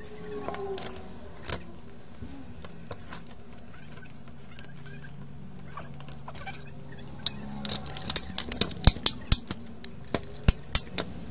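Hard plastic clicks and knocks as a PS5 power supply board is handled and fitted back into its black plastic casing. A quick run of sharp clicks and taps comes in the second half, as the case parts are pressed together.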